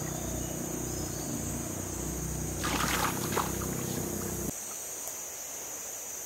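Brief splashing of river water beside a canoe about three seconds in, over a steady high drone of insects.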